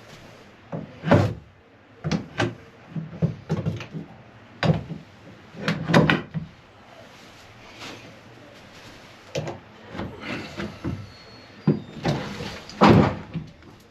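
A scattered series of short wooden knocks and clunks from the back-door locks of a wooden chicken coop being worked open by hand.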